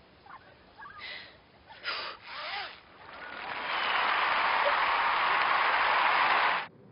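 A few brief voice-like sounds, then applause swelling up about three seconds in, holding steady and loud, and cutting off sharply near the end.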